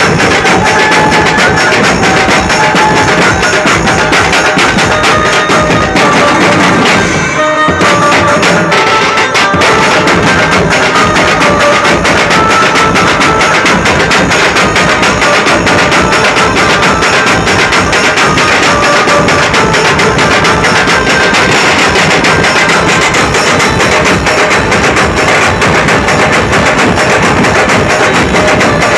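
Dhumal band music played loud through horn loudspeakers: an electronic keyboard carries the melody over fast, dense drumming, with one brief dip about seven seconds in.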